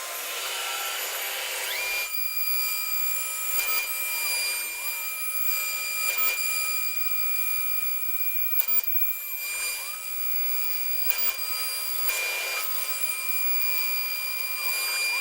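CNC router running: a steady high-pitched whine, with a lower tone that drops and returns several times as the machine changes its motion, and short bursts of cutting noise every couple of seconds.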